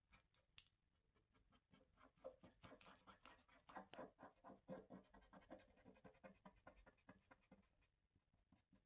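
Faint, rapid scratching strokes, several a second. They get busier about two seconds in and die away near the end: hand clean-up of excess plastic epoxy around a repaired shroud nut on a dirt bike gas tank.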